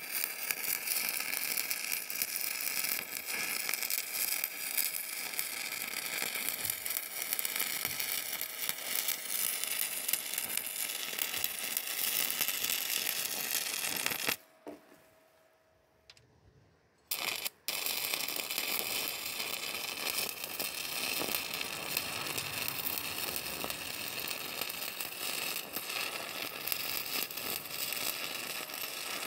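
Stick-welding arc crackling and hissing steadily. It stops for about three seconds halfway through, is struck again with a couple of short pops, and runs on.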